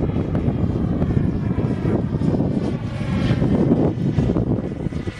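Radio-controlled model jet flying overhead: a steady rushing noise with a faint high whine that slowly falls in pitch.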